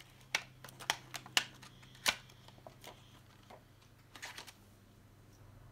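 Plastic blister packaging of a set of markers being pried open by hand: a quick run of sharp crackles and snaps over the first two seconds, then a short crinkle about four seconds in.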